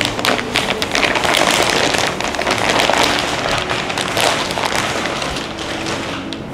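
Thin plastic sheet crinkling and crackling continuously as it is pulled out from underneath a body, easing slightly near the end.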